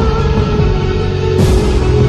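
Background music with sustained chords, and a sharp crash-like hit about one and a half seconds in.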